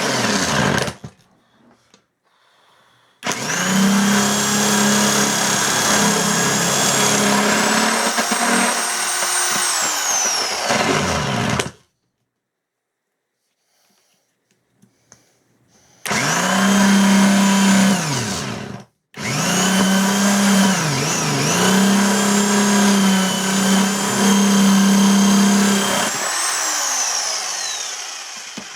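Electric impact wrench running in three long bursts on the chair's bolts, a steady motor whine that spins up at the start of each burst and winds down at the end, dipping briefly under load in the last one.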